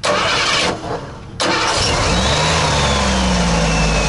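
A van's engine being started, heard close up from its engine bay: the starter cranks, there is a short lull, and the engine catches about a second and a half in. It then runs on, its speed rising and then easing down toward idle.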